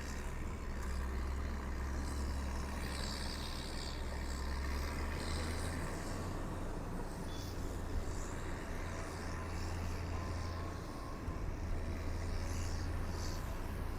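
Steady low rumble of a motor vehicle travelling along a road.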